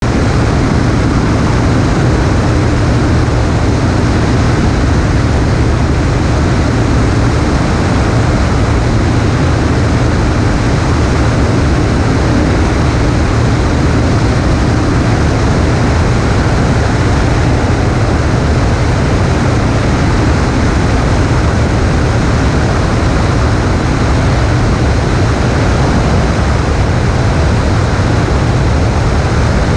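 Light propeller aircraft in flight: a loud, steady drone of engine and propeller mixed with wind rushing over the microphone.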